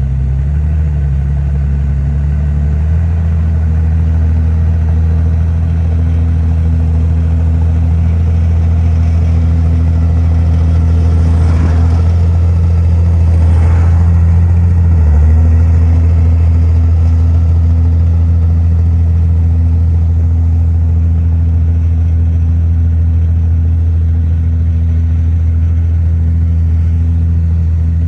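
Komatsu bulldozer's heavy diesel engine running steadily under load. Its pitch wavers in the first few seconds and dips briefly about halfway through before settling back, with faint scraping of soil and stone around the middle.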